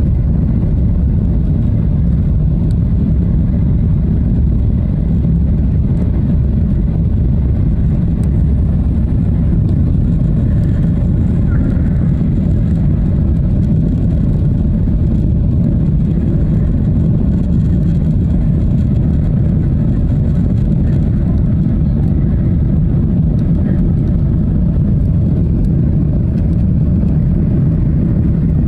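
Steady low roar of a Boeing 737-800 heard from inside the passenger cabin during the climb after takeoff: engine noise and rushing airflow at an even level.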